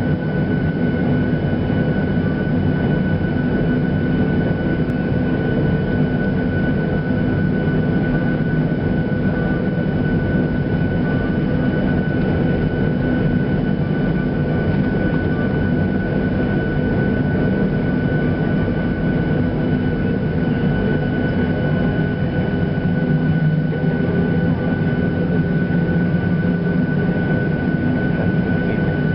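Steady cabin noise inside a Boeing 737-800 on the ground before takeoff: an even airliner hum with a thin, steady high whine, holding level throughout.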